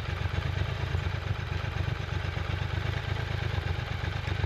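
Triumph Scrambler 1200 XE's 1200 cc parallel-twin engine idling steadily with a low, rapid pulse, on its stock exhaust. It cuts off abruptly at the very end as the engine is switched off.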